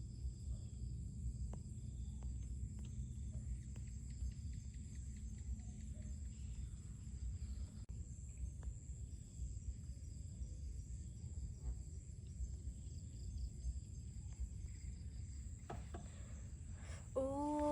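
Steady high insect drone, like crickets, over a low outdoor rumble with faint scattered clicks. Near the end a cat's meow begins.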